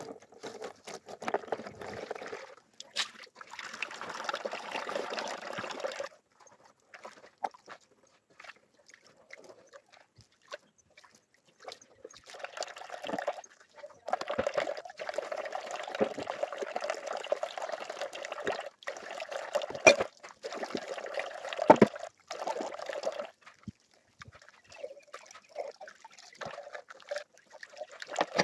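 Water running from a tap and splashing during washing, in several spells that start and stop, with small knocks and clicks in between.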